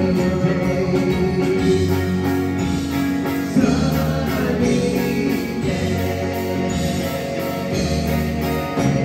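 Live band playing and singing a pop song: lead and harmony vocals over electric and acoustic guitars, bass and drums.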